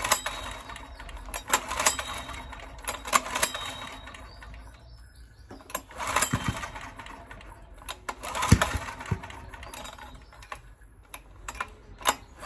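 Recoil starter on a Honda EX1000 portable generator pulled several times in quick succession, the engine turning over with each pull without settling into a run. This is a hard start that the owner puts down to a fuel issue.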